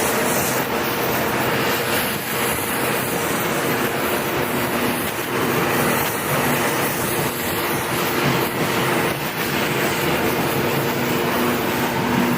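Angle grinder grinding down a weld on a steel leaf spring: a steady motor tone under a continuous harsh grinding hiss.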